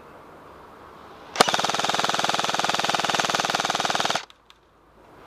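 M4-style airsoft rifle firing one sustained full-auto burst of nearly three seconds, a fast even rattle that starts with a sharp click and cuts off abruptly.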